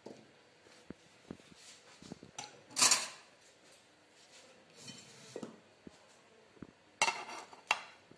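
A metal spatula and fork scraping and clinking against a glass baking dish as a baked potato casserole is cut into and portioned, with scattered clicks, one loud scrape about three seconds in and a few sharp clinks near the end.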